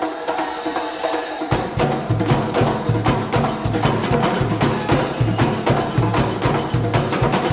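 Percussion-driven music: quick, even drum and wood-block strokes, joined by a pulsing low bass line about a second and a half in.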